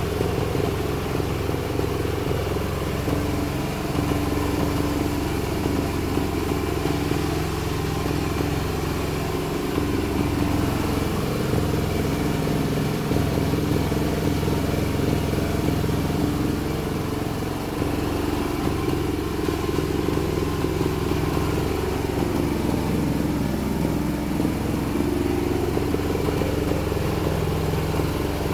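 M-30R2 multipurpose grinding machine running steadily as it grinds manure, its drive making a continuous mechanical drone whose pitch wavers slightly as the load changes.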